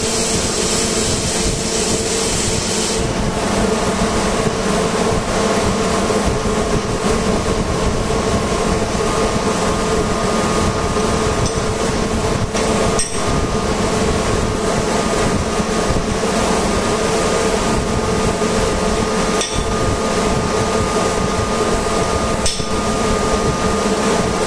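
Steady machinery drone with a constant hum, and a high hiss that stops about three seconds in. Over it a hammer taps now and then on a chisel held against the metal end cover of a vane air compressor.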